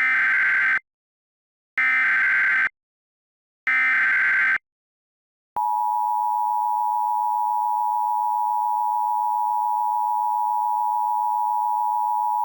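Emergency Alert System alert tones: three identical harsh, buzzy SAME header data bursts, each about a second long and a second apart. About five and a half seconds in, the steady EAS attention tone begins and holds, marking the start of an emergency alert.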